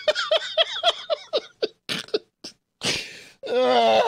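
A man laughing in a quick run of short, high-pitched bursts, about four a second. Then a drawn-out, groan-like vocal sound begins about three and a half seconds in.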